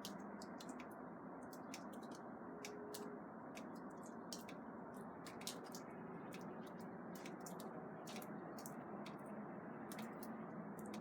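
A steady, unexplained rumbling noise with a faint hum in it, and water dripping over it in irregular sharp ticks, several a second.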